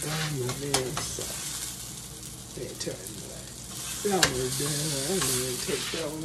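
Sausage patties sizzling in a frying pan, a steady hiss broken by a few sharp clicks. A low voice wavers over it near the start and again from about four seconds in.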